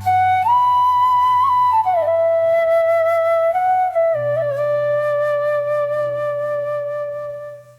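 Background music: a flute-like melody of a few long held notes with small slides between them, over sustained low bass notes, fading out near the end.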